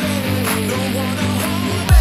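Background music: a break in a dance track where the kick drum drops out, leaving held chords and a wavering melody line, with the beat coming back in right at the end.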